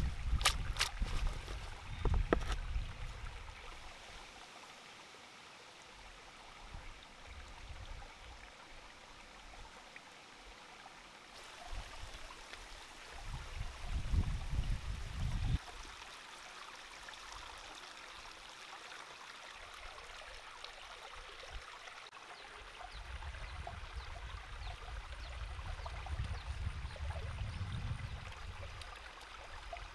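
Small stream running steadily over rocks, with a few sharp clicks at the start and a louder stretch of low rumbling handling noise about halfway through.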